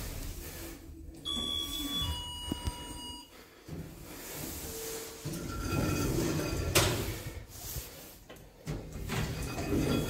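A lift's two-note falling chime about a second in, then the sliding lift doors moving with a steady whine and a clunk around seven seconds.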